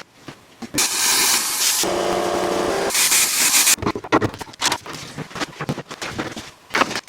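Garage work noise: a loud steady hiss for about three seconds, with a brief hum partway through, then a rapid jumble of clicks and knocks from tools.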